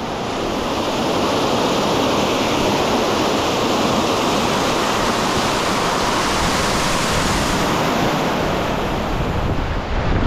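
Steady rush of a mountain stream's water over rocks and cascades.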